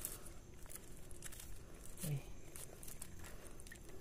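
Faint crinkling and scattered small clicks of plastic raffia string being wound and pulled tight around a mud crab. A man's voice gives a brief low murmur about two seconds in.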